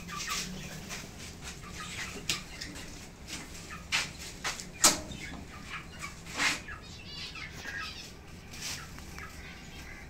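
Caged pet birds chirping: short calls scattered at irregular intervals, the loudest just before the middle.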